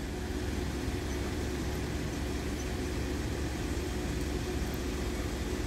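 Steady low rumble of road vehicles idling at a closed level crossing, with a faint even hum over it. Nothing starts or stops.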